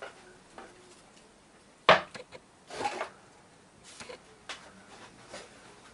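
Hand work on a workbench: one sharp knock of a hard object set down on the board about two seconds in, then a short rubbing or wiping sound with a rag, and a few light taps and clicks.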